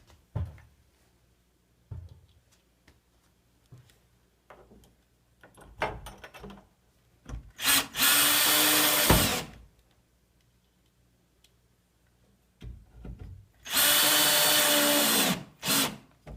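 Power drill running in two bursts of about a second and a half each, a steady motor whine, with light handling clicks and knocks before the first.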